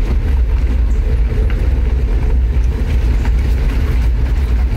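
Motorhome driving slowly: a steady low rumble of engine and road noise, with a few faint light rattles.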